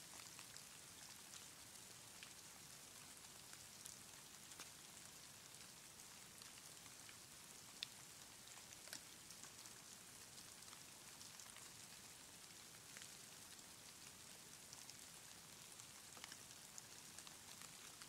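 Faint patter of falling snow: scattered light ticks over a soft, steady hiss.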